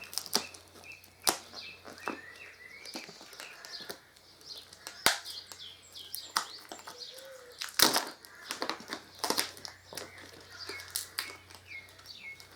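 Plastic shrink wrap being cut and pulled off a new windscreen kit, with irregular sharp crackles and rustling of the plastic.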